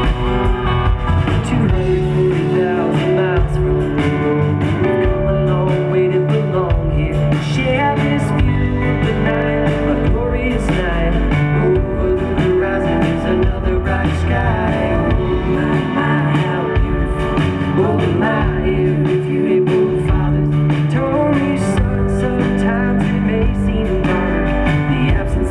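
Live band music: acoustic guitar with drum kit and congas.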